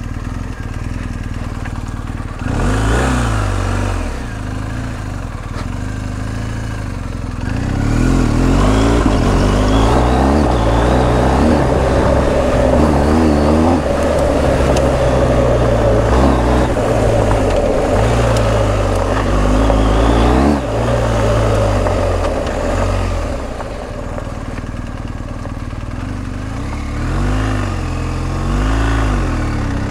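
BMW R1250 GS Adventure's boxer-twin engine under way, its revs rising and falling again and again with the throttle. It runs louder through the middle stretch.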